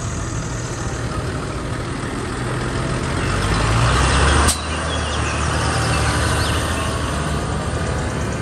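Diesel engine of a large Fendt farm tractor running as it drives and turns on tarmac, with a low hum. It swells a little, then a sharp click comes about halfway through and the sound settles slightly lower.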